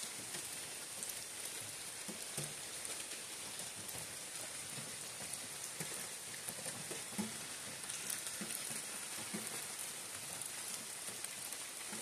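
Steady rain falling on a leafy forest canopy: an even hiss studded with many separate drop hits.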